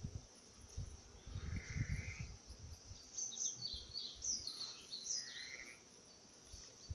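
Rustling and soft bumps in the grass as a young Norwegian Elkhound puppy rolls about and chews a plush toy, with a few short falling chirps from a bird through the middle.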